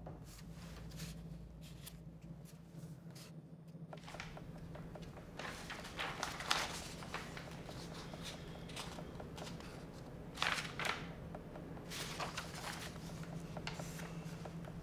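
Soft rustling and handling of paper sheets over a steady low room hum, with louder rustles about six seconds in, around ten seconds and again about twelve seconds in.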